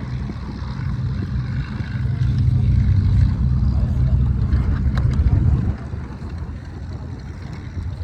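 Hawker Hurricane's Rolls-Royce Merlin V12 engine running at taxi power as the fighter taxis past, a low propeller rumble that grows louder a couple of seconds in and drops off at about six seconds.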